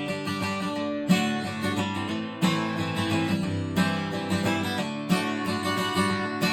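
Background music: strummed acoustic guitar, with a strong strum about every second and a bit.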